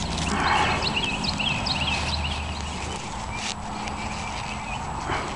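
Small birds chirping repeatedly in the background, over the rustle of dry garlic stalks being handled and braided, loudest about half a second in.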